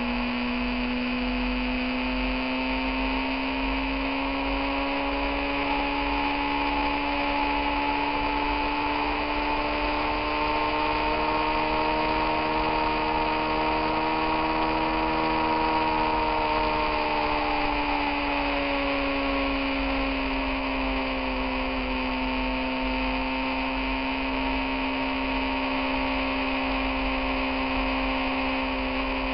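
Motorcycle engine running at a steady cruise, its tone rising a little towards the middle and then easing back down, over a low rumble and a constant hiss.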